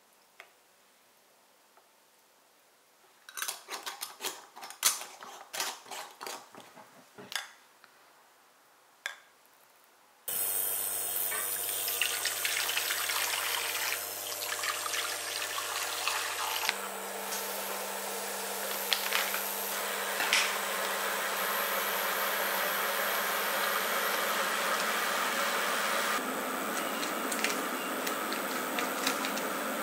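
A few seconds of light clicks and taps while a glass mason-jar drink is garnished. Then, from about ten seconds in, a steady rush of water poured from a jug into a hotpot pan, running on as the pot heats and bubbles, over a low steady hum.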